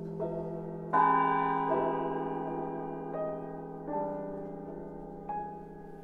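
Slow improvised music of single struck notes that ring and slowly fade over a held low tone, a new note entering about six times, the loudest about a second in.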